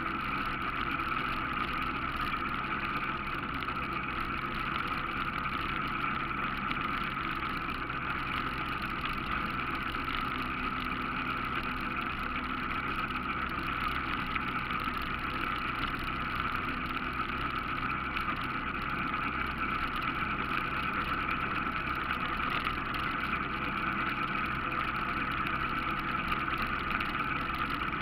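ATV engine running steadily as the machine rides along, with a constant high hum over the motor noise.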